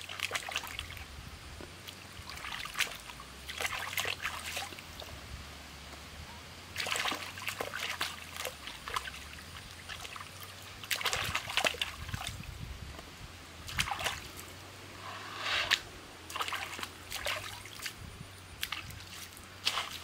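Cucumbers being rubbed and rinsed by hand in shallow stream water: irregular splashing and sloshing in short bursts every few seconds.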